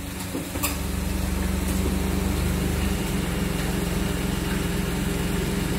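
Daihatsu Ayla 1.0's three-cylinder engine running under throttle as the car pulls slowly forward. It grows louder over the first second and then holds steady, with a deep rumble that eases about halfway through. An iForce throttle controller is plugged in, which the owner finds makes the engine respond with no lag.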